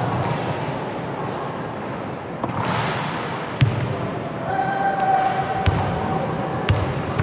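Basketball bouncing on a hardwood court in a large sports hall, with a few sharp thuds from the ball over a steady echoing background of players' and spectators' voices.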